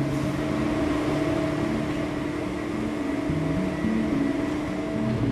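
Steady industrial hum and ventilation noise of a waste-bunker hall, with low sustained background-music notes that change pitch every second or so.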